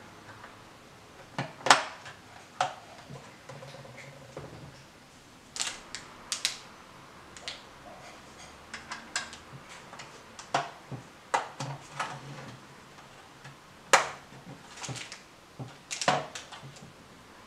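Hard plastic toy parts clicking and snapping as Playmobil pieces are pressed onto the toy car's body: about a dozen sharp clicks at irregular intervals, with small handling knocks between them.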